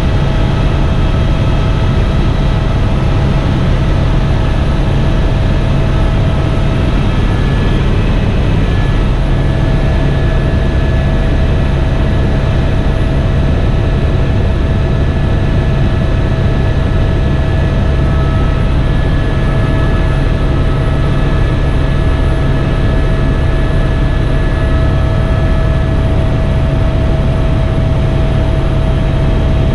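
Helicopter in flight: a constant low drone from the rotor and turbine engine, with a few steady high whines over it.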